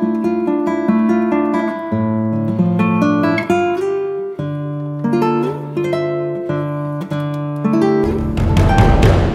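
Background music of plucked acoustic guitar, a run of picked notes. About eight seconds in it swells into a louder, noisier passage.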